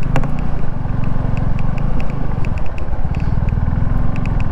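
Suzuki V-Strom motorcycle engine running steadily with the bike under way, a low even throb with a light ticking over it about four or five times a second.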